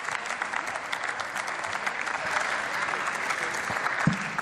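Members of parliament applauding: a steady, dense patter of many hands clapping, with a single low thump about four seconds in.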